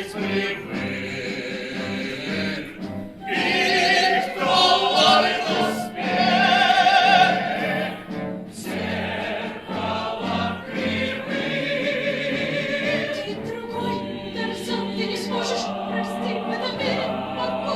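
Music with choral and operatic singing. A voice with strong vibrato stands out, loudest about four to seven seconds in.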